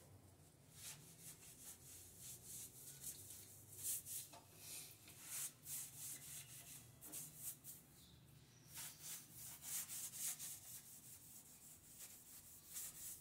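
Damp sponge rubbed in repeated strokes over glazed ceramic wall tiles, wiping the grout haze off the tile faces once the grout has set: a faint, irregular swishing rub.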